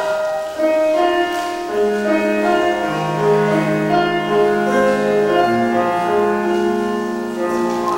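Grand piano playing a slow instrumental interlude of held chords over low bass notes, coming in about half a second in.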